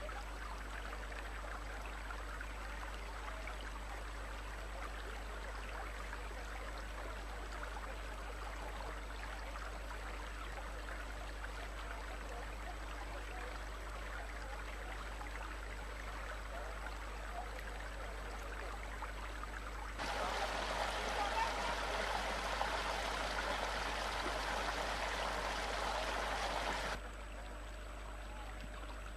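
A small forest stream running with a steady rushing sound, growing louder for several seconds about two-thirds of the way in and dropping back suddenly. A low steady hum lies underneath.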